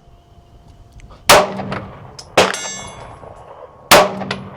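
Three sharp gunshots about a second and a half apart, each with a short echoing tail. The second is followed by a thin metallic ringing.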